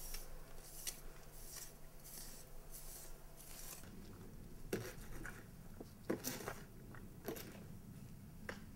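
Faint scraping of a small blade drawn through wet clay mortar between the log ends of a cordwood wall. After about four seconds, a few light knocks and clicks follow, about a second apart.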